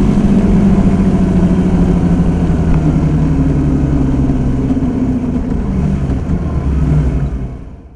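Honda Varadero 125's V-twin engine running steadily while the bike is ridden, heard onboard. The sound fades out near the end.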